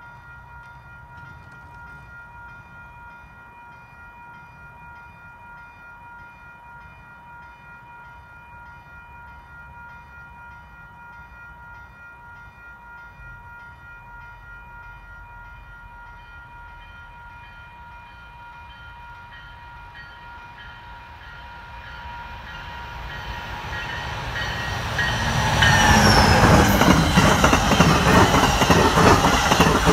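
Amtrak passenger train approaching from a distance and then passing close by. Its sound swells from about twenty seconds in and becomes a loud rush and clatter of wheels on rail from about twenty-six seconds on. Faint steady ringing tones sound underneath while the train is still far off.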